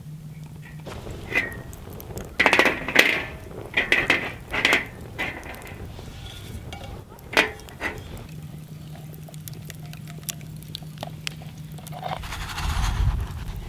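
A spoon stirring pancake batter in a clear cup, clinking and scraping against the sides in several quick bursts, with a sharp click soon after.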